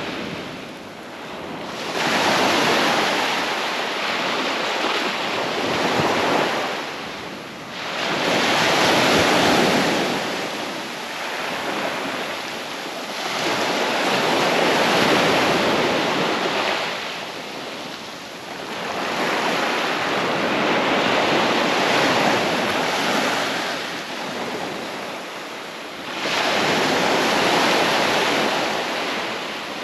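Small waves breaking and washing up a sand-and-shingle beach. The surf swells and fades in about five surges, one every six seconds or so.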